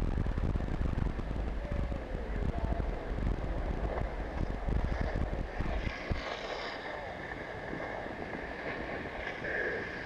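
Wind buffeting the microphone of a skier's body-worn camera, with skis hissing over packed snow during the run. The rumble falls off about six seconds in as the skier slows to a stop, leaving a quieter hiss.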